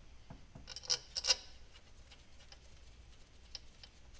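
Metal clinks of new head bolts being set into the aluminium cylinder head of a GM 5.3 LS V8 and started by hand. There is a cluster of sharp clinks about a second in, then a few faint ticks.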